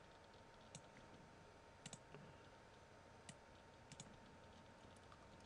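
Faint computer mouse clicks over near-silent room tone: a few scattered single clicks and two quick double clicks.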